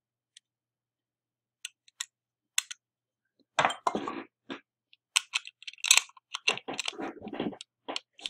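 Small steel lock parts clicking and clinking as a lever is fitted into the open case of a Yale three-lever mortice sashlock: a few faint ticks at first, then a busy run of clicks and rattles from about halfway.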